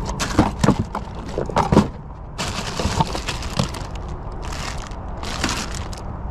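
Small metal odds and ends such as clips and pins clattering and rattling as hands rummage through a cabinet's contents, with a quick run of clicks first, then longer rustling, scraping stretches as things are pushed around.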